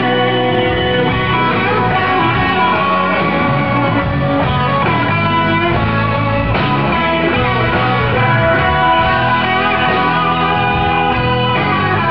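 Live country band playing loud amplified music, with electric guitar out front.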